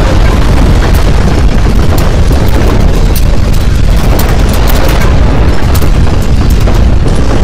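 Earthquake shaking: a loud, continuous deep rumble with scattered crackles and rattles on top, at the strongest intensity (shindo 7).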